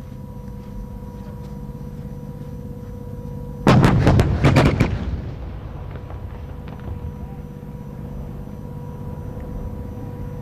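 A volley of several self-propelled howitzers firing almost together, about four seconds in: a tight cluster of loud blasts over roughly a second, ringing on in a long echo. The volley is a time-on-target fire mission. Under it runs a steady low rumble of idling engines.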